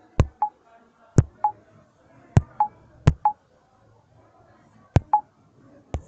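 Five pairs of sharp clicks from a phone's volume buttons, each click followed a quarter second later by a short beep of the phone's volume-change tone.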